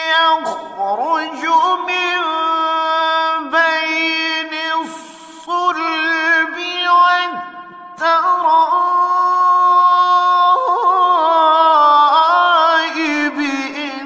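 A man's voice reciting the Quran in the melodic, drawn-out style of tajweed, holding long notes with ornamented turns, with a short breath pause about halfway through.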